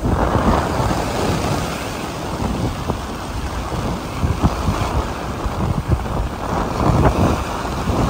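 Wind rumbling on the microphone over the steady wash of ocean surf.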